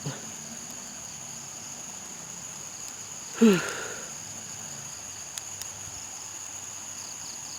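Crickets and other night insects chirring in a steady, high, even drone. About three and a half seconds in, one short, loud sound falls in pitch.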